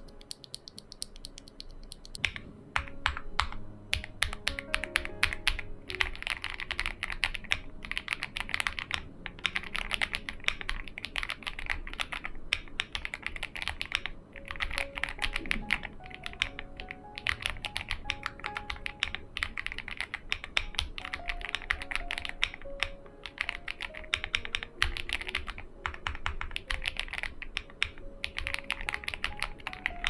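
Typing on a CF81 Pro mechanical keyboard with Hanami Dango V2 linear switches, a PC plate and full foam. A few scattered key presses open, then fast continuous typing sets in about two seconds in, broken by a few short pauses.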